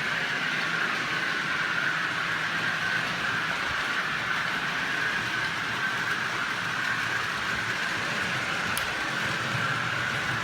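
OO gauge model train running on the layout's track: a steady whirring with a constant high whine that holds the same pitch throughout.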